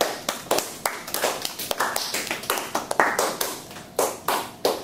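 A small group of people clapping their hands: separate, uneven claps at several a second, without the dense wash of a large crowd.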